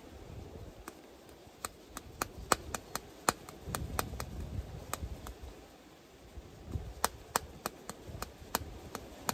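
Rubber flip-flop soles slapping against a bare heel as the foot flexes: a series of sharp slaps at an uneven pace, pausing for about a second and a half a little past the middle.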